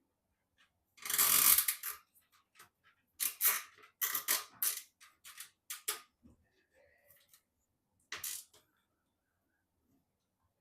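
Handling noise from PC parts during assembly: a run of short rustles, clinks and clicks, with the longest burst about a second in and another cluster a few seconds later.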